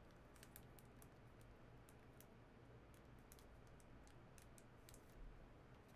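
Near silence: faint room tone with light, irregular clicks scattered through it.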